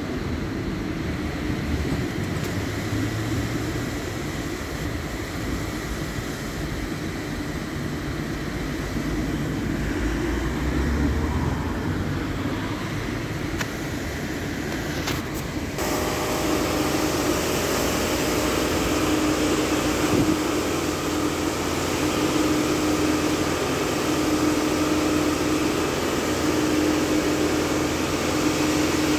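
Automatic tunnel car wash running: rotating brushes and water spray make a steady wash noise. About halfway through it changes abruptly to a brighter, hissier machinery noise with a steady hum.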